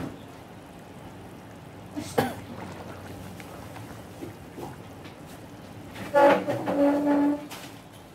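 A single sharp knock about two seconds in. About six seconds in comes a loud, pitched vocal sound from a person, partly held on one note, lasting just over a second.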